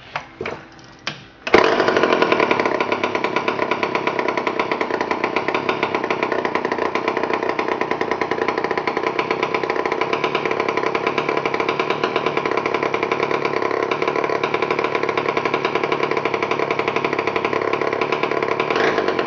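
1962 Homelite 990G chainsaw's 112 cc two-stroke engine being started: a few short pops, then it catches about a second and a half in and runs steadily and loudly.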